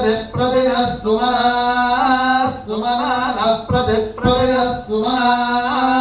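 A male voice chanting Vedic Sanskrit mantras in the repeating ghana style, with small rises and falls in pitch, in short phrases with brief breaks between them.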